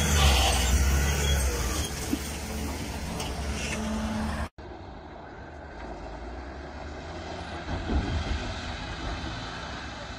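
A loaded logging truck's diesel engine runs steadily as the rig pulls its trailers through deep mud. About four and a half seconds in, the sound cuts off abruptly to a quieter, more distant truck engine.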